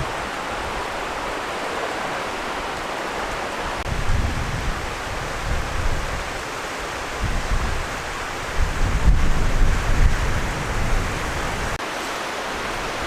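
Wind gusting across the microphone in deep rumbles, over a steady rush of moving water.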